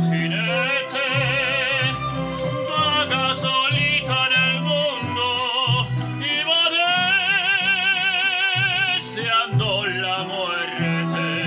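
A man singing a Mexican ranchera with long held notes and wide vibrato over recorded accompaniment with a steady bass line.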